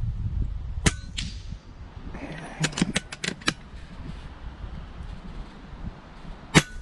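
Two sharp cracks from a shrouded and moderated .22 PCP air rifle (American Air Arms EVOL Mini) firing, one about a second in and one near the end, each followed by a faint short ring. A few quieter clicks come in between.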